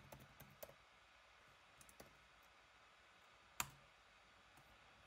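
Faint, scattered computer keyboard keystrokes. There are a few quick clicks in the first second, a couple more around two seconds in, and one sharper click about three and a half seconds in.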